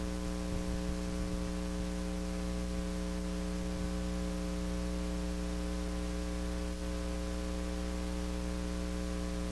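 Steady electrical hum with a layer of hiss on the air-to-ground radio channel between transmissions, holding unchanged with no voices.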